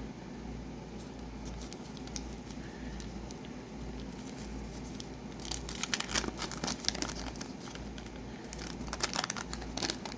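Waxed-paper wrapper of a hockey card pack being torn open and crinkled: two spells of dense crackling, one about five and a half seconds in and another near the end, after a few faint rustles. A steady low hum runs underneath.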